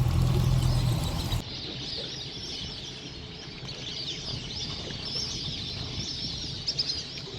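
A low motor hum for the first second or so, then a large flock of waterbirds calling, many short high calls overlapping without pause.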